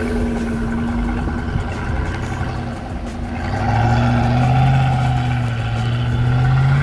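Pickup truck engine pulling through deep sand: it runs steadily at first, then revs up and gets louder about three and a half seconds in, its pitch climbing slowly toward the end.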